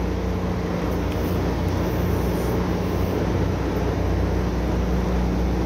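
Oil-well drilling rig machinery running steadily: a continuous engine hum with a constant low tone.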